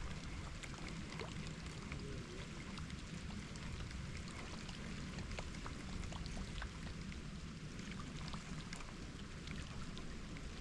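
Light rain falling: a steady hiss with many small scattered drop ticks and a low rumble underneath.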